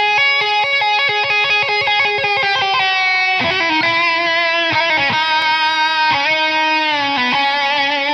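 Music played by an electric guitar: a low note is held under quick, changing higher notes, and the low note drops to a lower pitch about three and a half seconds in.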